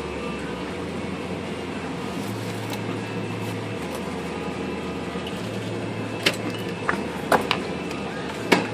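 Steady background hum with a low drone, and several light clicks and knocks of tools and parts being handled and set down in the second half.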